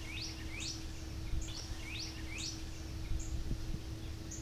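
A songbird calling a quick run of repeated high chirps, about two to three a second, over wind rumbling on the microphone.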